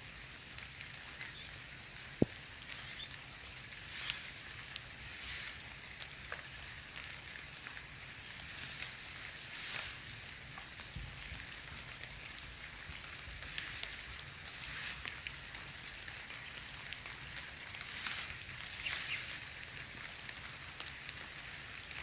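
Rain falling in a steady hiss of drops that swells now and then, with a thin steady high tone beneath it and a single sharp click about two seconds in.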